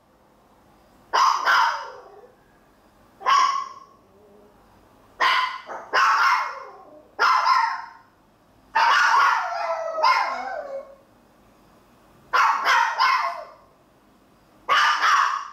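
A small Maltese dog barking repeatedly in short sharp yaps, in groups of one to three every couple of seconds, with one longer cry falling in pitch about nine seconds in. The barking comes from a dog left alone at home, which the owner takes for separation anxiety.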